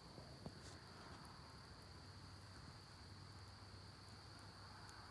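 Faint, steady, high-pitched insect trill, with a small click or two about half a second in.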